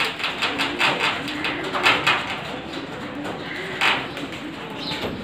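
A flock of pigeons cooing over and over, with bursts of wing flapping as birds take off and land, thickest in the first two seconds and again about four seconds in.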